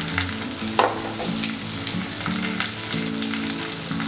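Onions, cashews and raisins sizzling in hot ghee in a stainless-steel pressure cooker pan, with a wooden spatula scraping and stirring through them as some are lifted out. There is one sharper knock about a second in.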